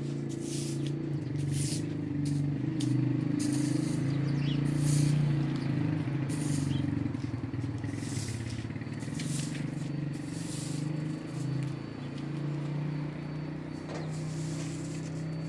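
A steady low engine drone, its pitch holding, with repeated short scraping strokes over it.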